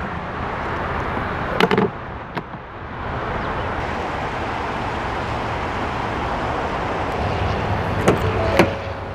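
Steady outdoor background noise, with a sharp click about two seconds in as the Ford Edge's fuel filler door is let go, then two clicks near the end as the driver's door handle is pulled and the door unlatches.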